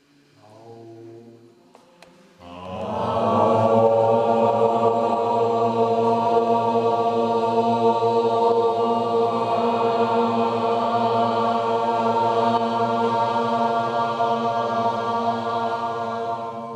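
A group of voices toning without words, in a church. A single voice sounds briefly, then about two seconds in the whole group joins on one long held chord, full of steady overtones, that fades away near the end.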